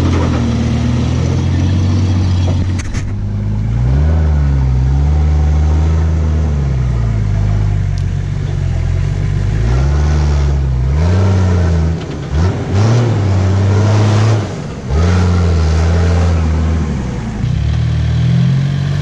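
A 4x4's engine revving up and falling back again and again, several times over, with two short drops in loudness partway through.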